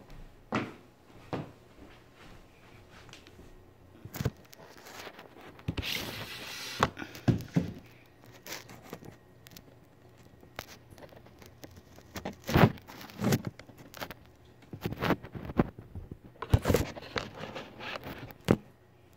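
Scattered knocks and clatters of kitchen work, with a brief rustling, tearing sound about six seconds in.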